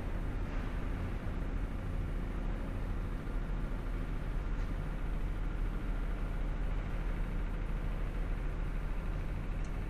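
Steady low rumble of urban outdoor background noise: distant city traffic. A few faint ticks come near the end.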